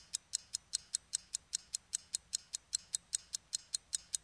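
Clock-like ticking sound effect under an animated logo intro: fast, even, sharp high ticks, about five a second.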